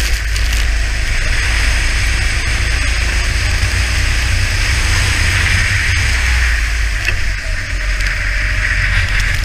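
A kart running at speed on a wet track, heard through an onboard camera: heavy wind rumble on the microphone over the engine's steady note and a constant hiss.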